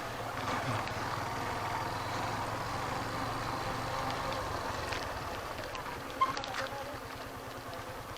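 Motorcycle engine running steadily at low revs, its hum easing slightly after about five seconds, with one sharp click about six seconds in.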